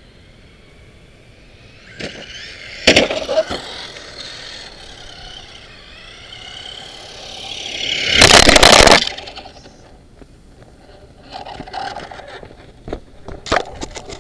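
Electric RC truck (Traxxas Slash) motor whining, with two hard knocks about half a second apart around three seconds in. The whine then glides up and down and swells into a loud second-long rush of tyres and motor as the truck passes close. Near the end there is a scatter of clicks and knocks.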